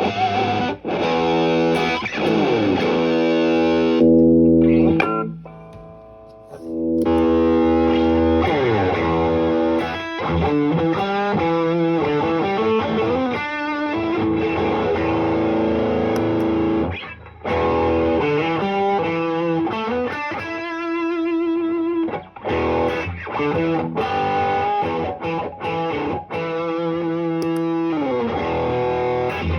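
Electric guitar played through a Caline CP-47 Pressure Tank compressor pedal: held chords and single notes that ring out, with one chord left to die away about a fifth of the way through before playing resumes.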